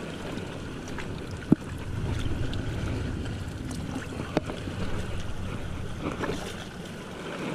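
Wind buffeting the camera microphone: a low rumble that swells about two seconds in. Two sharp knocks, about one and a half and four and a half seconds in.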